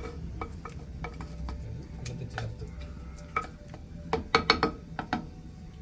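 Wooden spatula stirring and scraping thick meat curry in a clay pot, with scattered clicks. A quick run of sharp knocks against the pot, about four seconds in, is the loudest part.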